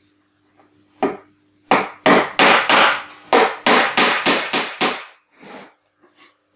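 Hammer driving nails through a pine back board into the cupboard. A couple of light starting taps come first, then a quick run of about a dozen blows at roughly three a second, and a few lighter taps near the end.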